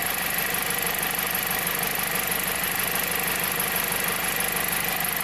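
2007 Jeep Compass four-cylinder engine idling steadily and running smoothly, between bouts of an intermittent cylinder 1 misfire.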